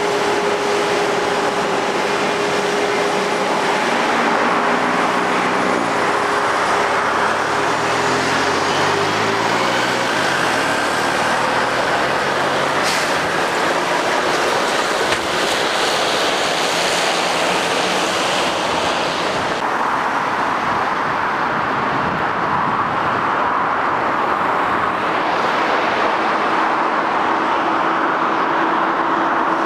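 Road traffic passing close by: heavy diesel vehicles, a bus and articulated lorries, running past with their tyres on the road surface. Their engine notes shift in pitch early on, and there is a single sharp click about halfway through.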